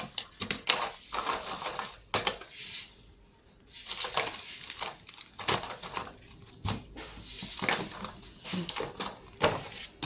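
Small hard items and their packaging being handled, with irregular clicks, clinks and rustles.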